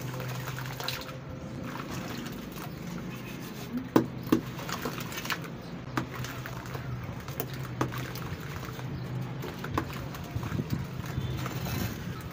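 Wet red sand brick squeezed and crumbled by hand in a tub of muddy water: squelching, with lumps and water dripping and splashing back into the tub, a sharper splash about four seconds in. A steady low hum runs underneath.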